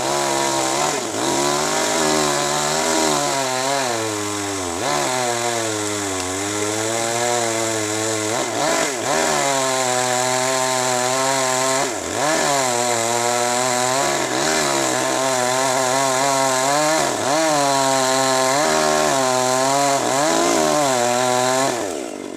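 Chainsaw cutting teak wood at high revs, its pitch sagging and recovering again and again as the chain bites into the wood and frees up. The saw drops back to a lower, quieter note near the end.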